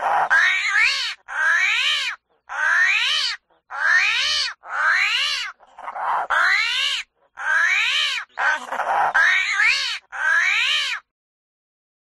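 An animal's meow-like cries, about a dozen in a row at roughly one a second, each under a second long and rising then falling in pitch; they stop about eleven seconds in.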